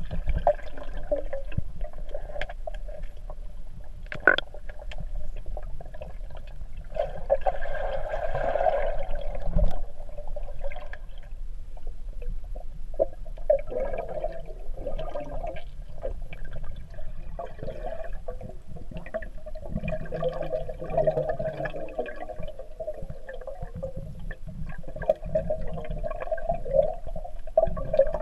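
Swimming-pool water heard from a microphone underwater: muffled, continuous gurgling and bubbling with scattered small clicks. It swells louder for a few seconds at a time, the loudest swell about a quarter of the way in.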